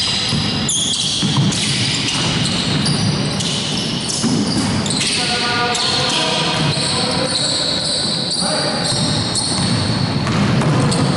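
Basketball being dribbled on a hardwood gym floor, with sneakers squeaking and players calling out, all echoing in a large sports hall.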